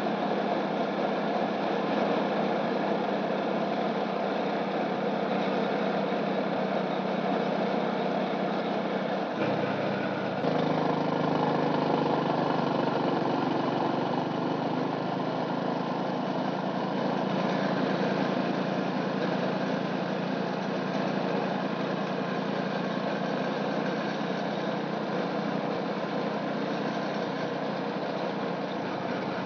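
A vehicle's engine running steadily on the move, its note shifting about ten seconds in.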